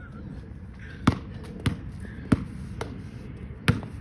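A basketball being dribbled on an asphalt driveway: about five bounces at an uneven pace, starting about a second in.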